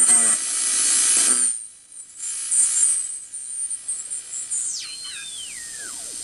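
RCA AR-77 shortwave receiver hissing with bursts of static under a thin, high, steady whistle. A little over four and a half seconds in, the whistle slides steeply down in pitch in a few stages, the heterodyne whistle of the set being tuned across a signal.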